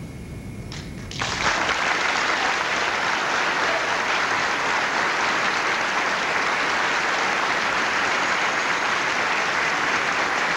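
Audience applause breaking out suddenly about a second in and carrying on steadily.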